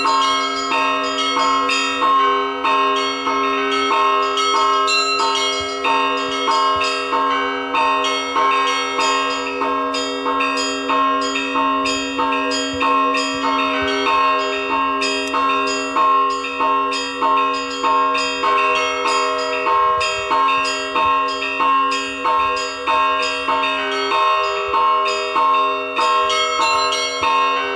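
Russian Orthodox church bells rung in a festive peal: smaller bells struck in quick repeating strokes over the lingering hum of a large bell.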